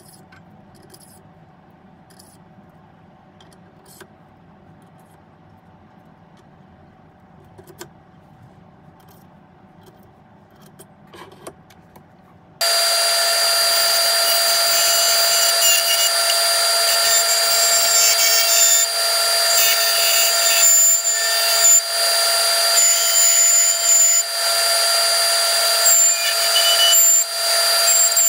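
A few faint clicks over a low hum, then a Nova Comet II mini lathe suddenly running with a steady whine as a turning tool cuts epoxy resin pen blanks, the scraping of the cut rising and falling unevenly.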